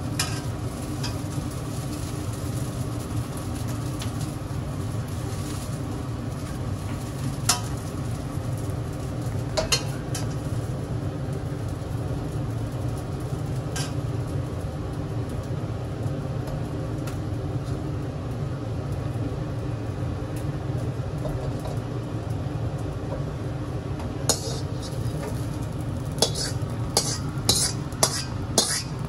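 Metal ladle clinking and scraping against a wok while fried rice is stir-fried, with a quick run of taps near the end as the rice is scraped out of the wok onto a plate. A steady low hum runs underneath.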